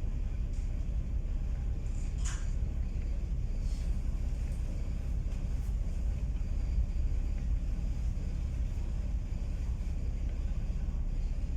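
Steady low rumble of strong wind buffeting the microphone aboard a moving river tour boat, with a brief high chirp about two seconds in.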